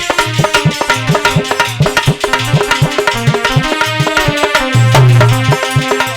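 Instrumental interlude of Indian folk devotional music: a hand drum playing quick, rhythmic strokes under a sustained melody line.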